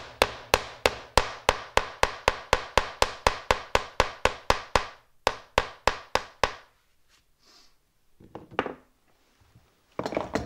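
Hammer tapping a glued wooden knot plug into a drilled hole in a softwood board: quick, even blows about three a second, a short pause, a few more blows, then the hammering stops about six and a half seconds in. A single knock near the end.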